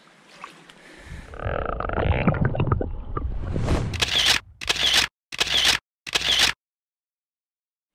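Shallow stream water sloshing and splashing, with rumbling handling noise, as a trout is let go from the hands. Then four camera-shutter clicks in quick succession, each about half a second long.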